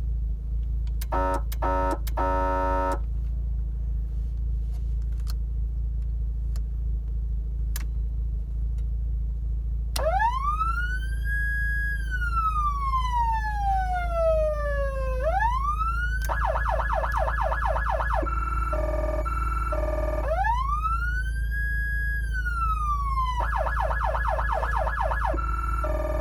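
Federal Signal Touchmaster Delta electronic siren amplifier sounding through its speaker. It gives three short horn-tone blasts first. Then it cycles through its siren tones: a slow wail rising and falling, a fast yelp, and a two-note hi-lo alternation, run through twice. A steady low hum lies underneath.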